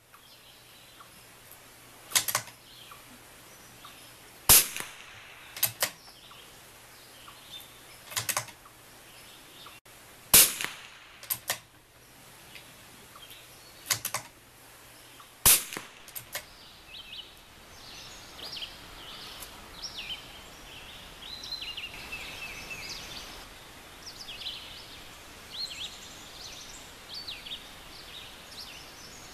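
A .22 LR bolt-action rifle, a Vudoo V22 firing Lapua Center-X, shooting a few single sharp cracks several seconds apart, with quieter clicks in between, mostly in the first half. Birds chirp in the background through the second half.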